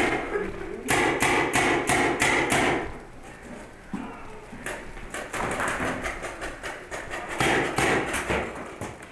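Paintball markers firing several rapid bursts of sharp pops, a few shots a second.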